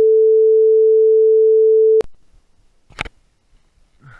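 A loud, steady beep at a single pitch, an electronic sine tone edited in as a sound effect, which cuts off sharply about two seconds in. A faint click follows about a second later.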